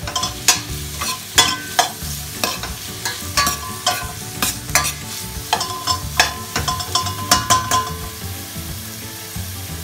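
Metal spoon scraping and knocking against a stainless steel pot while stirring sliced onion and red bell pepper sautéing in oil, which sizzles underneath. The strokes come about one or two a second and ease off near the end.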